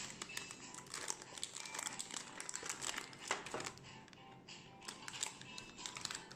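Crinkling and rustling with many small irregular crackles, as of crinkly material being handled, over soft background music.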